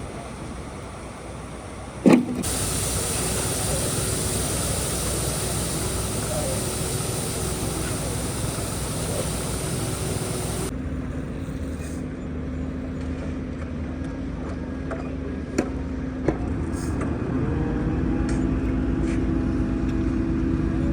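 Engine running steadily, the machinery noise of a concrete pour. A loud sharp thump comes about two seconds in, the sound changes abruptly twice, and near the end the engine's pitch rises a little.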